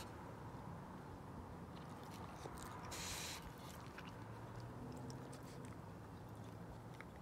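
Raccoons feeding at close range, with small chewing and clicking sounds, and one of them gives a short breathy hiss about three seconds in.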